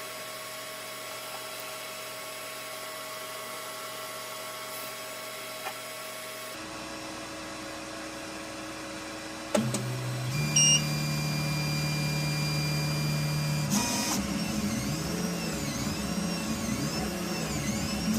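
Core200 3D printer: its fans hum steadily. Then comes a click and a short high beep, and its stepper motors run with a steady low whine. From a little past the middle the steppers whine in repeated rising-and-falling sweeps as the print head moves back and forth, priming the nozzle on the bed and starting the print after the pause.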